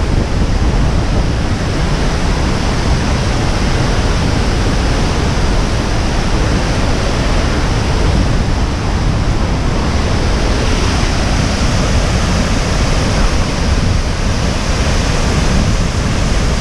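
Large waterfall, a loud steady rushing roar heavy in the low end, with wind buffeting the microphone.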